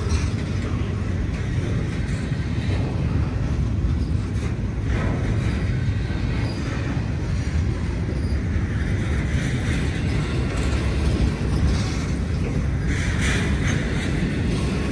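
Freight train rolling past on the tracks, a steady rumble of wheels and railcars.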